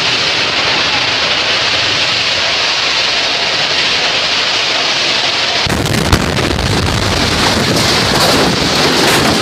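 Fire at a gas filling station burning with a loud, steady rushing hiss. A bit over halfway through, the sound abruptly turns deeper and rougher, with a low rumble and frequent crackling pops.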